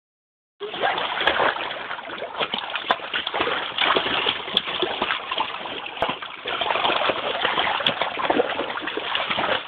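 Two small dogs paddling and splashing in a shallow inflatable kids' pool: continuous, uneven water splashing and sloshing that starts about half a second in.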